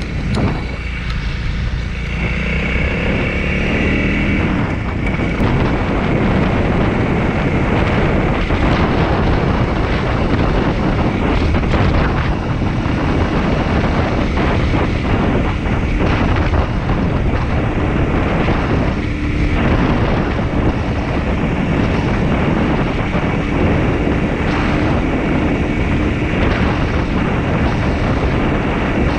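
Honda CRF300L single-cylinder engine running while the motorcycle is ridden, under heavy wind rush on the microphone. The engine note shows through most clearly in the first few seconds and holds as a steady low hum later on.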